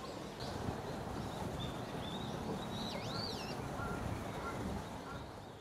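Outdoor ambience: a steady background hiss with small birds chirping now and then, fading out near the end.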